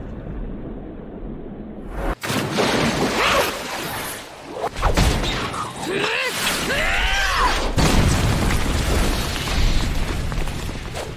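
Anime battle sound effects: a muffled underwater rumble, cut off about two seconds in by loud rushing noise. Sliding, rising-and-falling cries come about six to seven seconds in, under a booming impact.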